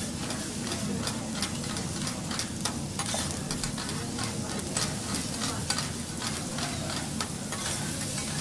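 Sliced garlic sizzling in oil on a steel teppanyaki griddle, with frequent irregular clicks and scrapes of the chef's metal spatula stirring and turning it.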